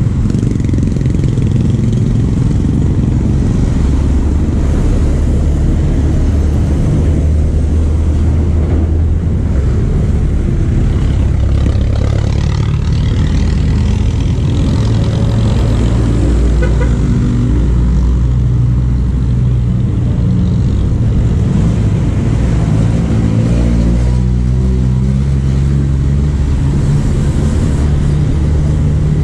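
Road traffic passing close: motorcycles, motor tricycles and a jeepney, their engines running with a steady low hum. Engine pitch rises as vehicles speed up, once a little past halfway and again later.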